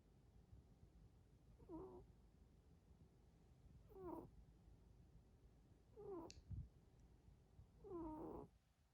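A sleeping cat snoring softly, making a short squeaky note that falls in pitch with each breath, four times about two seconds apart.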